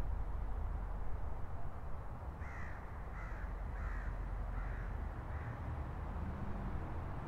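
A crow cawing five times in quick succession, about two and a half seconds in, the last calls fading. Under it runs a steady low rumble of distant traffic.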